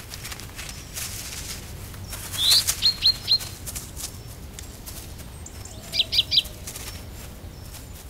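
Dry fallen leaves rustling as a Eurasian red squirrel digs and forages in the leaf litter. Short high bird chirps come over it: a quick rising note and three chirps about two and a half seconds in, then another few chirps around six seconds in.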